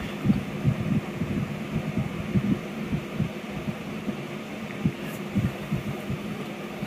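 Soft, irregular low thumps and bumps, several a second, from a small dog and a man play-wrestling on a couch, over a steady low hum.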